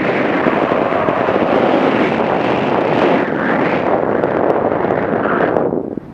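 Wind rushing over the microphone and the hiss of sliding fast through powder snow on a downhill run. The sound swells and eases with the turns, then drops off sharply near the end as the rider slows.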